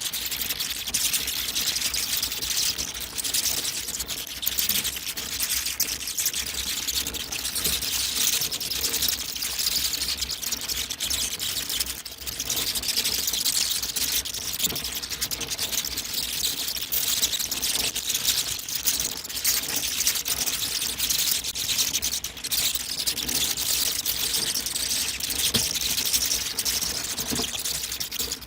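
A colony of bats chittering: a steady, dense mass of rapid high clicks and squeaks.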